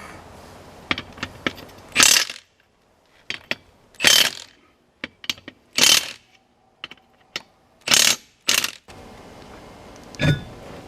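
Milwaukee 1/2-inch impact wrench fired in five short bursts, spinning off the tractor's lug nuts, with light metallic clicks in between.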